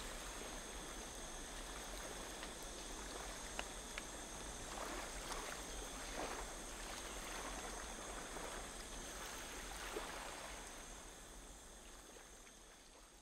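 Ambience of moving water with soft splashes and a few small clicks, over a steady high-pitched whine. It fades out near the end.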